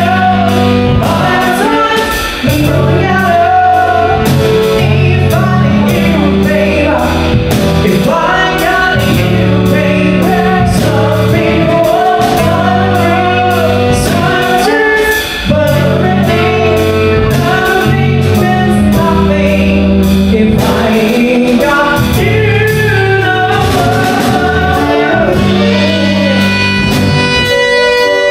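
A song with a singing voice over instrumental backing and a steady drum beat.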